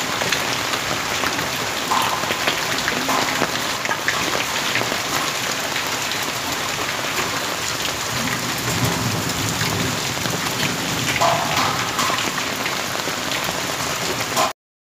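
Heavy rain pouring onto a concrete rooftop and surrounding trees, a dense, steady hiss of drops. It cuts off suddenly near the end.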